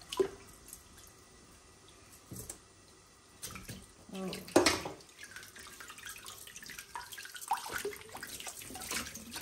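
Kitchen tap running into a steel bowl of water in a stainless steel sink while hands rinse pieces of raw fish, splashing. There is a sharp knock about four and a half seconds in, and the splashing gets busier toward the end.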